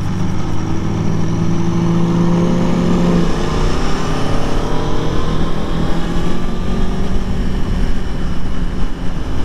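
Aprilia Tuono motorcycle engine accelerating hard onto a highway: it holds one note for about three seconds, changes gear, then climbs steadily in pitch through the next gear. Steady wind rush runs underneath.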